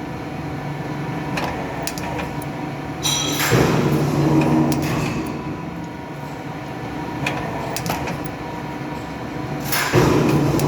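CNC lathe tool turret running on a test bench: a steady motor hum with sharp clicks, and twice, about 3.5 and 10 seconds in, a louder whirring index movement ending in a clunk as the turret locks.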